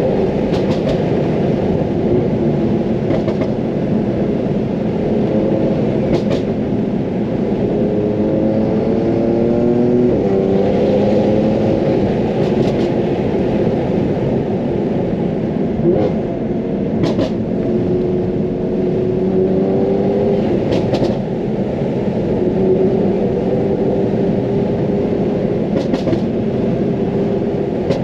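2015 BMW F80 M3's twin-turbo inline-six, straight-piped with the secondary cats deleted, droning under load on the drive. Its pitch climbs and falls back several times, with a handful of brief sharp clicks scattered through.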